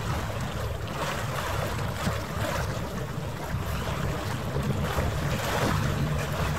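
Wind buffeting the microphone over open harbour water, in uneven gusts. A low steady hum comes in near the end.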